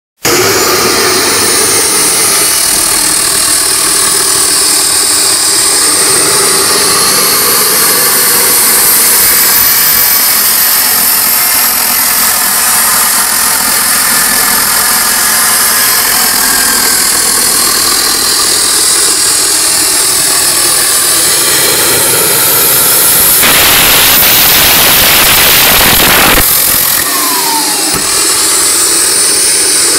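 Home-made gas turbine built around a turbocharger running loudly, a steady rushing roar with a high whine that slowly rises and falls. For about three seconds near the end a louder rushing hiss comes in, followed by a short falling whistle.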